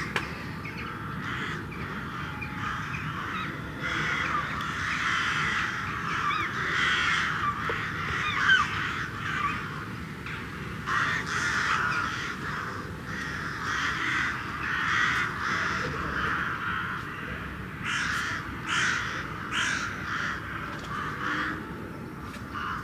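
A large flock of corvids in flight, many birds calling at once in a dense, continuous chorus of overlapping short calls.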